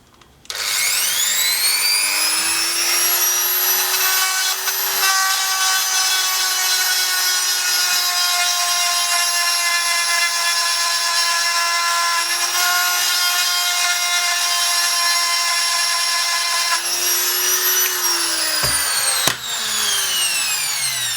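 Handheld rotary tool (Dremel-type) spinning up with a rising whine, running at high speed with brief dips in pitch as it bites into the part, then winding down with a falling whine near the end. It is grinding clearance so a screw no longer fouls the selector plate.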